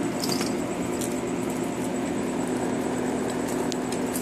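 Steady rain falling, an even hiss with a low steady hum beneath it and a few light clicks.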